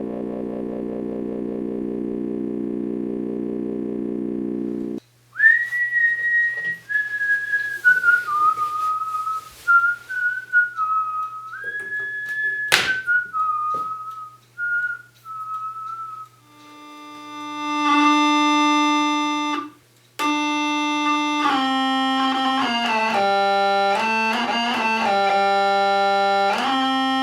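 Dubreq Stylophone 350S analogue synthesizer being played. It opens with a steady buzzy drone, then a thin whistle-like line that slides from note to note, then fuller organ-like held notes and a run of changing notes. The sound is a little scratchy, which is put down to oxidized stylus tips.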